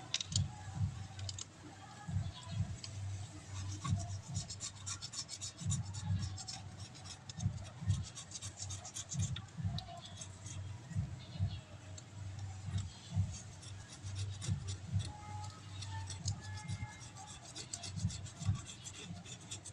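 Hands working on engine parts: rubbing and scraping, with scattered light clicks and irregular dull knocks.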